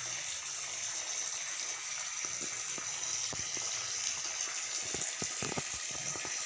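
Water running steadily from a small pipe into a shallow pool dug in an earth floor, a continuous trickling gush used to keep the floor wet and cool. A few soft knocks come in the second half.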